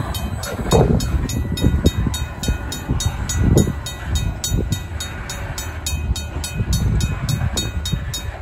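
Covered hopper cars of a freight train rumbling over the crossing with heavy wheel thumps, under the rapid even strokes of a RACO mechanical crossing bell, about four a second. The bell stops at the very end as the crossing deactivates.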